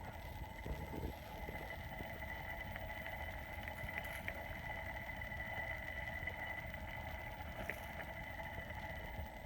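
Dryer motor running with a steady high whine over a low rumble, and a few faint ticks: the abnormal motor noise the owner is asking about.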